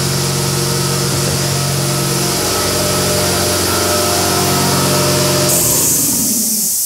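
Noisy upright air compressor running steadily at a loud level; about five and a half seconds in it stops, the motor winding down in pitch while a loud hiss of released air starts.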